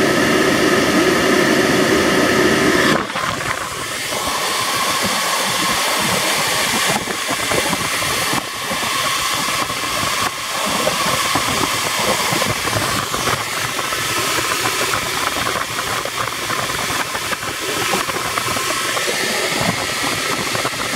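GAZ-21 heater blower driven by a 197.3730 electric heater motor running at full 12 V, a steady rush of air with motor hum. About three seconds in, the deeper hum drops away and a slightly quieter rushing hiss carries on.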